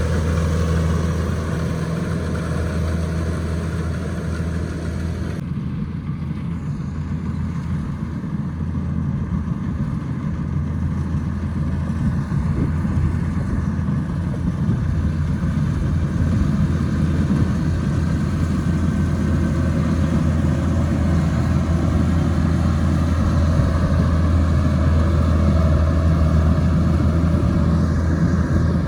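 Rice combine harvester's engine running steadily with a deep, even drone. The higher hiss thins out about five seconds in.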